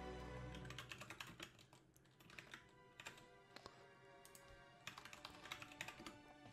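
Typing on a computer keyboard: three short runs of quick key clicks, about a second in, around three seconds, and near the end. Faint orchestral music plays underneath.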